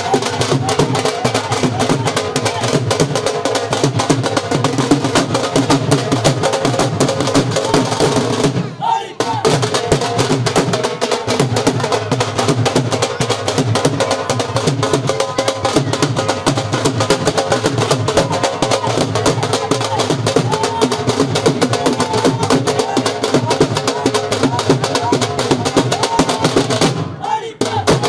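Rajasthani folk music: fast dhol drumming under a held melodic line, with brief breaks about nine seconds in and again near the end.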